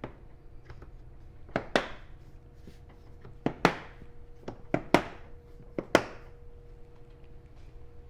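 Sharp clicks and knocks from handling a PepperBall TAC-SF launcher, mostly in quick pairs, about seven in all over a few seconds.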